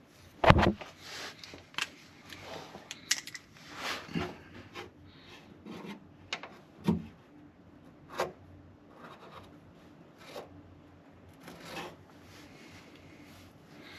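Handling noises of work on a car's front bumper while a cut line is marked out with a marker: a sharp knock about half a second in, then scattered rubs, scrapes and light taps.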